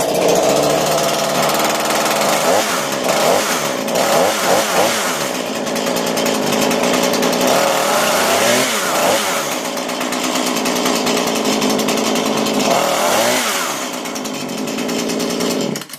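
A Husqvarna two-stroke chainsaw running loudly. Its engine speed swings up and down a few times as it is revved, then it cuts off suddenly at the end.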